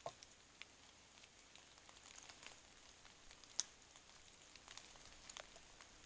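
Faint, scattered raindrops ticking at irregular times on leaves and gear, one sharper tick about three and a half seconds in, over a faint steady hiss.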